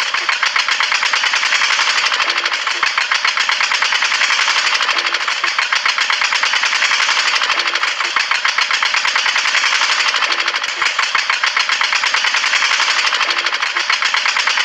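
Small DC motor driving a miniature homemade flour mill through a rubber-band belt, running steadily with a fast rattling buzz as the mill grinds grain into flour.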